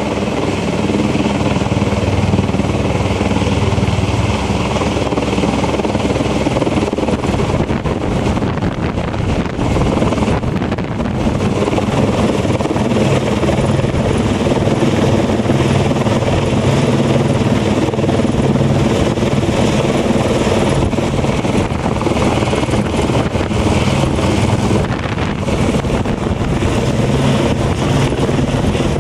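Helicopter hovering overhead with a pole slung on a long line, its rotor and engine running loud and steady with a fast rotor chop.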